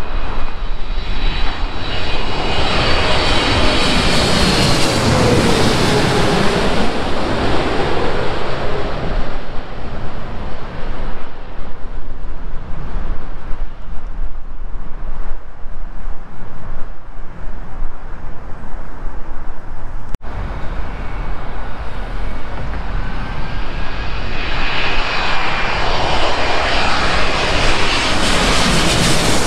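Boeing 777-200LR jet passing low overhead on final approach, its engine whine falling in pitch as it goes by, followed by steady wind rumble on the microphone and road traffic. Near the end a second twin-engine airliner on approach grows loud as it comes overhead.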